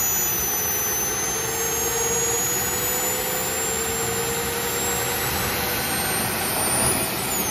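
Twin model jet turbines of an RC A-10 running steadily on a first ground run: a rushing exhaust hiss under a thin high whine that creeps slowly upward in pitch.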